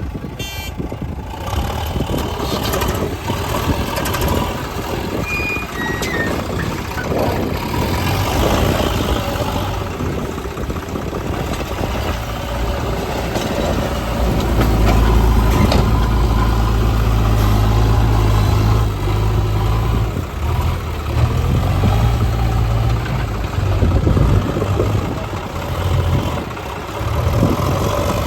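Diesel engine of a JCB 3DX backhoe loader running under working load while digging and loading mud. It grows louder and deeper for several stretches in the second half.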